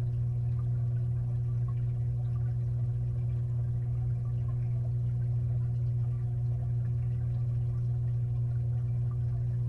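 Steady low hum of an aquarium's filter motor heard from inside the tank, unchanging throughout, with a few faint ticks over it.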